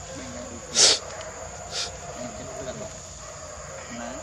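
Insects droning steadily in the forest undergrowth. A short, loud noisy burst comes about a second in and a softer one about two seconds in.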